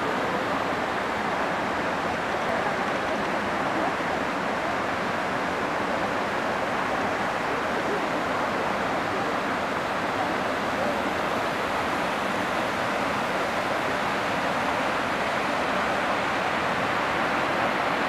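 Waterfall and rocky mountain stream, a steady, even rush of falling water over stone.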